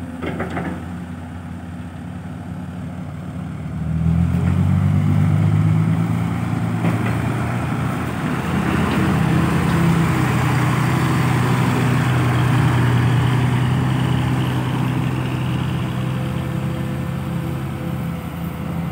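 Diesel engines of a loaded Isuzu six-wheel dump truck and an excavator idling, then the truck's engine revs up about four seconds in as it pulls away under load, running loud and steady before easing off slightly near the end as it drives off.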